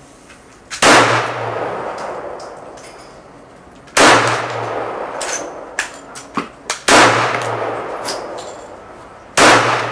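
Four shots from a 9mm Kel-tec PF9 subcompact pistol, spaced about three seconds apart, each ringing out in a long echo under the range's roof. Between the second and third shots come a few light clicks. The pistol cycles the MagTech 124-grain rounds without a malfunction.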